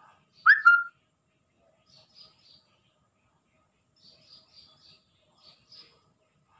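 Small birds chirping: short high notes in quick runs of three or four, coming every second or so. About half a second in, one much louder squeal rises in pitch and holds briefly.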